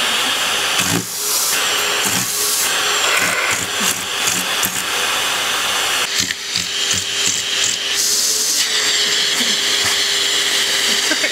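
Vacuum cleaner running steadily, drawing through a hose nozzle that a cat is pawing and biting; its tone changes about six seconds in and again near nine seconds.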